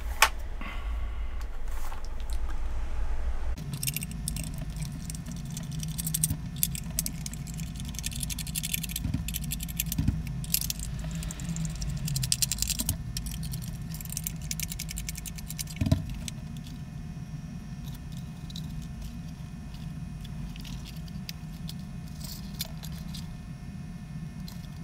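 A small screwdriver backs screws out of the plastic case of a Bosch GAA18V-24 USB charging adapter, and the case is then pried apart by hand: scattered light clicks, ticks and plastic rattles, with a couple of sharper knocks.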